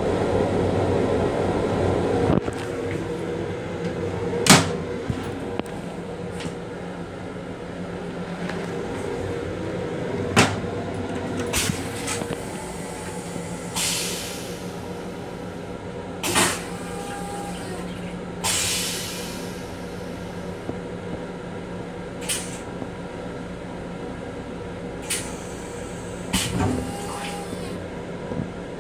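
Running noise of a Long Island Rail Road M7 electric train car heard inside its small restroom: a steady hum with a low tone. Sharp knocks and rattles come every few seconds, the loudest about 4 and 10 seconds in, with a few short hisses.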